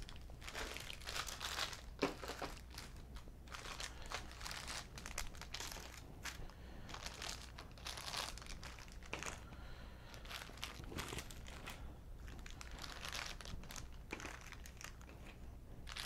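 Plastic parts bags crinkling and rustling as they are handled and moved about on a workbench, with a few light knocks as bagged parts are set down.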